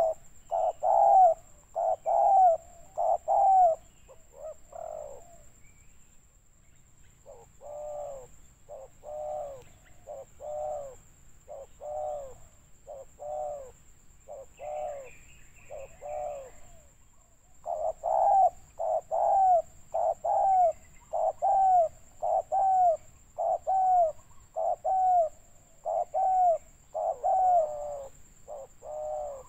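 Spotted dove cooing: a long series of short coos that rise and fall, about one a second. The coos stop briefly a few seconds in, come back fainter, and grow louder again past the middle. A faint steady high whine runs underneath.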